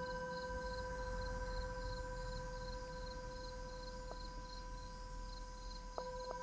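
Metal singing bowl ringing with a steady tone that slowly fades, with a brief tick on it about four seconds in and several more near the end. Insects chirp in a steady pulse behind it.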